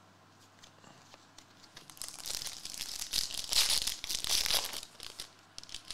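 A foil trading-card pack wrapper crinkling as it is torn open by hand. It starts about two seconds in and goes on for about three seconds.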